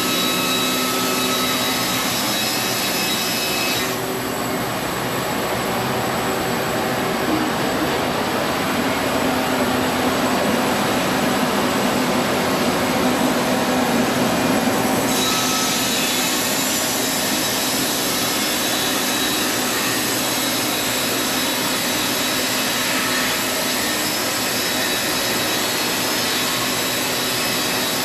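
Sawmill sawing through an antique heart pine beam: continuous loud machine and blade noise, turning lower and heavier from about four seconds in until about fifteen seconds in.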